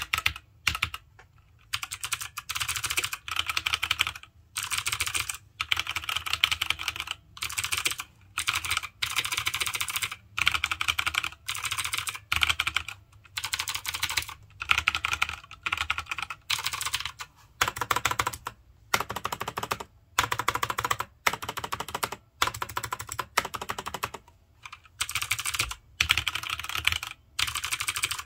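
Fast typing on Redragon K585 mechanical gaming keypads, one with brown switches and one with blue switches. The keystrokes clatter in quick bursts of about a second, separated by short pauses.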